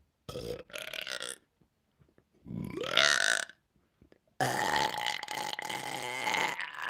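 A woman belching on purpose, her burps brought up by a fizzy cola: a few short burps, then one about two and a half seconds in that rises in pitch, then a long drawn-out burp that starts about four and a half seconds in and holds a steady pitch.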